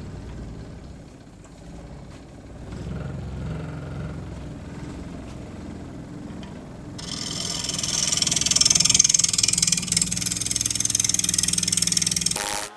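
Electric power tool motor running steadily, then from about halfway through a loud hiss as it bites into walnut wood, cutting or sanding.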